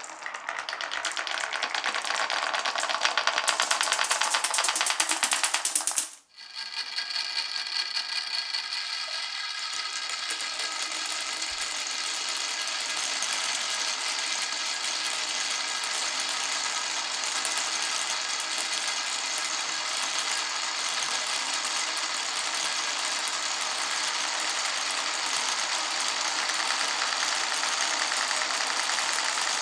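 Marbles rolling and clattering along a marble-run track, a rapid continuous clicking rattle. It cuts out for a moment about six seconds in, then goes on as a steadier rolling rattle with a ringing tone.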